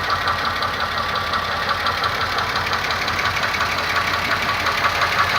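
2002 Pontiac Grand Am GT's 3.4-litre V6 idling with a rapid, even tapping knock (a golpeteo) whose cause the owner does not know.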